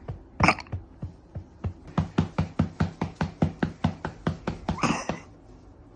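Soft pats of a hand on a baby's back to bring up a burp. The pats are slow at first, then quicken to about four or five a second, and stop near the end. A brief rougher sound comes just after the start and another shortly before the pats stop.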